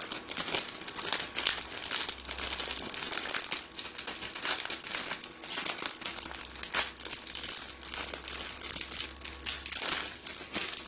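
A thin clear plastic bag crinkling as hands pull it open to take out a sticker sheet, a continuous run of sharp crackles that rises and falls in loudness.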